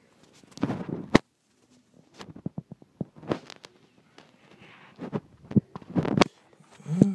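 Handling noise: irregular clicks, knocks and short rustles of plastic being moved about, with a quick run of small ticks about two and a half seconds in. A low pitched sound sets in at the very end.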